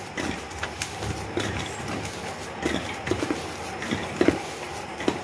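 A hand kneading crumbled paneer against a stainless steel basin: a continuous rubbing and pressing with irregular soft knocks and scrapes on the metal, more of them in the second half.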